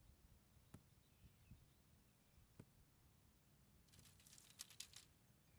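Near silence: faint outdoor ambience with a couple of soft ticks and a short faint crackling about four seconds in.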